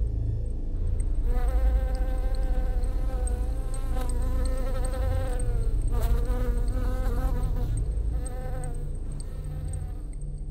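Ambient soundtrack drone: a deep steady rumble with a buzzing, wavering tone over it. The tone comes in about a second in, breaks briefly twice and stops near the end, leaving the rumble.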